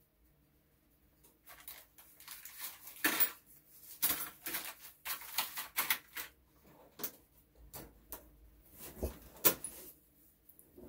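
Metal tools clinking and knocking while someone rummages through tools for a particular one. An irregular run of clicks and clatters starts about a second and a half in.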